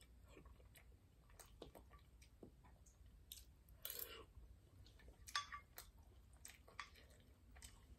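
Faint eating sounds: a metal spoon clicking and scraping in a clear food container and a mouth chewing eggs, with a sharper spoon click about five seconds in.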